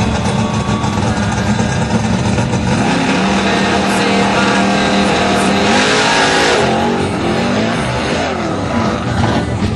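Supercharged Chevy Nova drag car running hard, its engine note holding a steady pitch, then loudest around six seconds in, with the pitch swinging up and down over the last few seconds.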